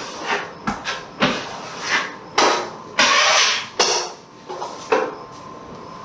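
Steel drywall knife spreading and scraping quick-set joint compound along a drywall seam: a series of short scraping strokes, the longest and loudest about three seconds in.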